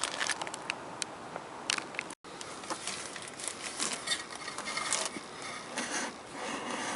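Scattered clicks, taps and rubbing of hands and a tool working the car's old spin-on oil filter loose, with a brief break about two seconds in.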